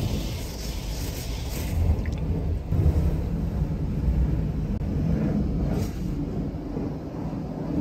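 Automatic car wash machine running over the car, heard from inside the cabin: a steady low rumble with water spraying and hissing against the glass.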